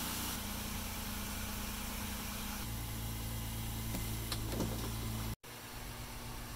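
Honda Ridgeline's V6 engine idling steadily, a low even hum. About five seconds in the sound cuts out for an instant and a quieter steady hum follows.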